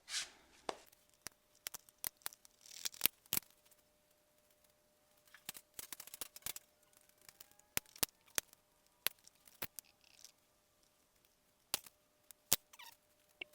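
Scattered sharp clicks and taps of hand tools and small metal parts being handled during a motorcycle teardown, irregular and spaced out with quiet between them.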